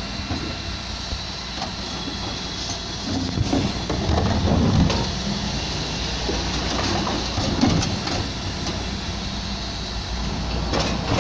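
Rear-loading refuse truck running steadily with its hydraulics working, as a plastic wheelie bin is rolled up and raised by the bin lifter, with scattered knocks and rattles.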